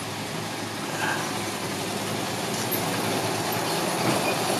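Six-wheel dump truck running, a steady engine rumble with road and body noise.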